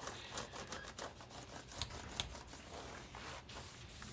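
Laptop keyboard keys clicking irregularly as they are pressed down through a damp cloth, with the cloth rubbing over the keys.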